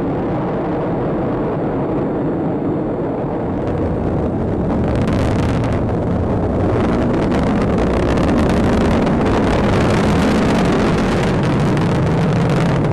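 Atlas V rocket's RD-180 main engine and solid rocket boosters burning during ascent: a steady deep rumble that grows a little louder and more crackling about five seconds in.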